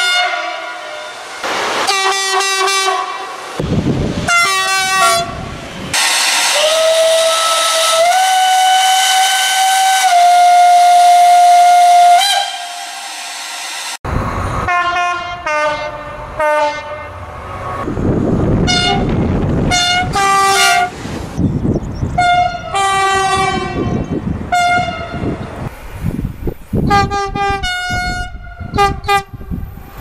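Electric train horns sounding repeatedly: many short toots, and a long horn held for about six seconds whose pitch steps up and then down slightly. After an abrupt cut, further short horn blasts sound over the low rumble of a passing train.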